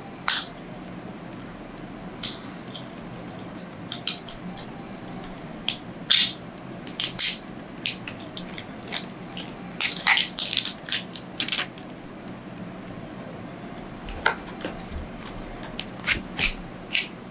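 A small battery's wrapping being poked and torn open with a pen: the packaging rustles and rips in short bursts, with several clusters of quick crinkles.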